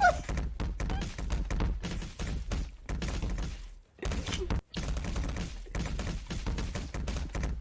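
A rapid, irregular run of sharp clicks and thumps over a low rumble, breaking off briefly twice about halfway through.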